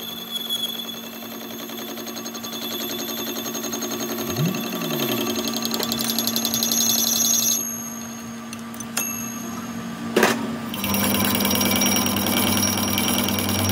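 Metal lathe turning a steel workpiece: the tool cutting with a rapid fine chatter and a ringing whine over the steady spindle hum. Near ten seconds in, a sharp click, then a louder steady hum and ringing as cutting resumes.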